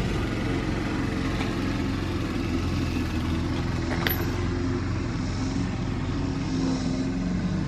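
An engine running steadily at a constant speed, with an even low hum.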